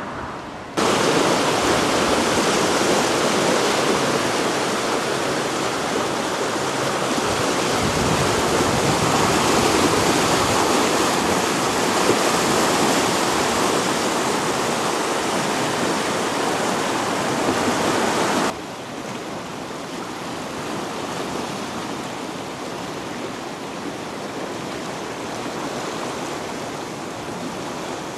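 Fast floodwater of a swollen river rushing past, a loud even rush that starts suddenly about a second in and cuts off after about 18 seconds, leaving a quieter steady rush of the river.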